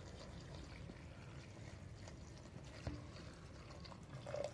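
Water being poured from a jug into a pressure cooker over chickpeas, onion and tomato, heard faintly, with one light knock a little under three seconds in.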